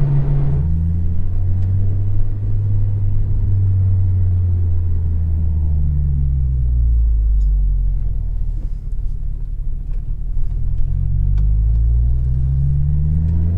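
Acura RSX Type-S's 2.0-litre K20 four-cylinder engine through a Yonaka catback exhaust, heard from inside the cabin: a deep, low note without rasp. The engine note steps down about a second in, holds steady, sinks around the middle as the car slows, then climbs again near the end as it accelerates.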